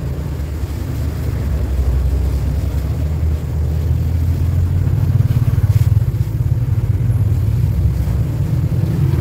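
Low, steady rumble of vehicle engines in passing road traffic, building slowly and loudest about five to six seconds in.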